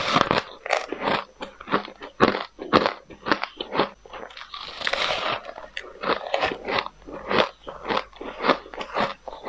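Close-miked biting and chewing of frost-coated, powdery refrozen ice chunks: a steady run of sharp, crisp crunches, about two a second.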